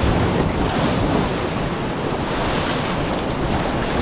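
Class III whitewater rapid rushing steadily around a paddle raft, with wind buffeting the microphone.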